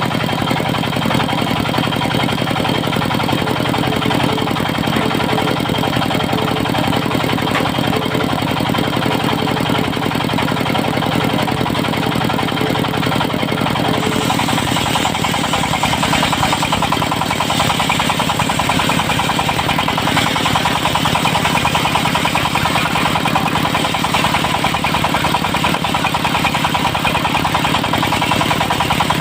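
Diesel engine of a portable circular sawmill running steadily, driving its 70 cm saw blade. About halfway through, a higher-pitched hiss joins the steady drone and stays.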